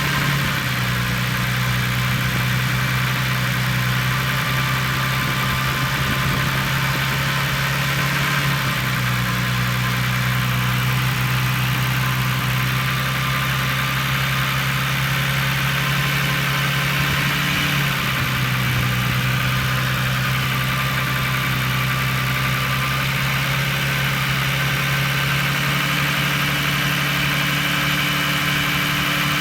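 Volkswagen Corrado engine idling roughly, its idle speed shifting slightly up and down a few times. The owner complains that the idle jumps up and runs rich.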